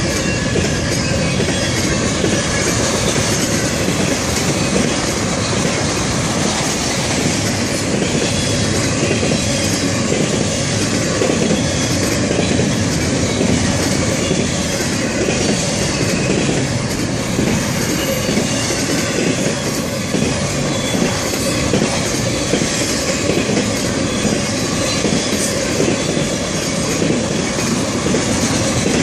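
Cars of a long intermodal freight train, well cars and flatcars loaded with containers and trailers, rolling past close by. Steel wheels run on the rail with a steady, loud rumble and clatter, and a thin squeal runs throughout.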